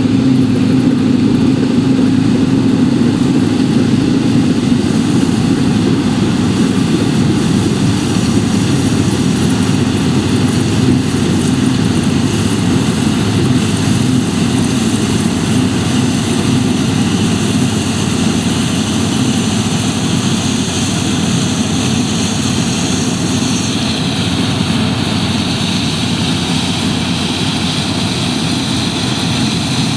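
New Holland TX68 combine harvester running steadily with its engine and threshing drum droning. A high whine over the drone drops lower about two-thirds of the way through.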